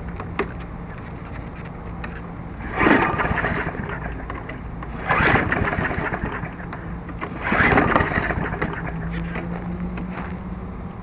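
Briggs & Stratton 3.75 hp lawn mower engine cranked three times on its pull-cord recoil starter, about two and a half seconds apart. Each pull turns the engine over, but it never catches and runs: a no-start.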